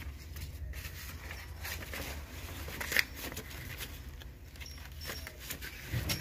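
Old paper envelopes and documents being rifled through by hand: irregular dry rustling and crinkling, with one sharper crackle about three seconds in.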